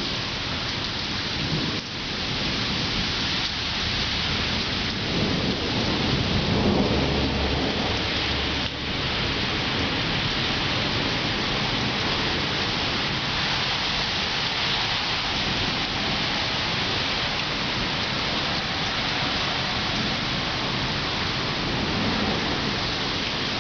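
Heavy rain falling steadily, a constant hiss, with a brief low rumble about seven seconds in.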